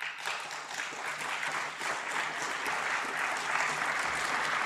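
Audience applauding steadily, the clapping building slightly over the first couple of seconds.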